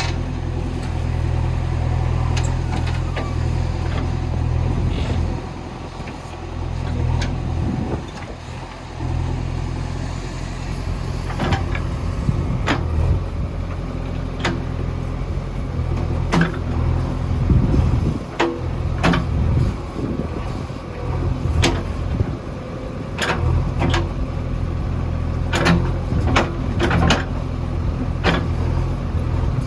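JCB 3DX backhoe loader's diesel engine running steadily, its level dipping now and then as the machine works. From about ten seconds in, sharp knocks and clanks come repeatedly as the bucket digs.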